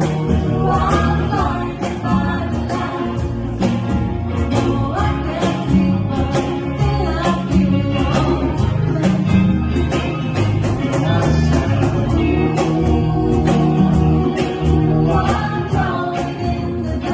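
Band music with singing over a steady drum beat and bass.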